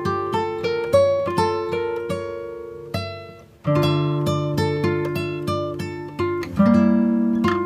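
Background music: acoustic guitar picking a gentle run of plucked notes. The notes die away briefly about halfway through, then start again.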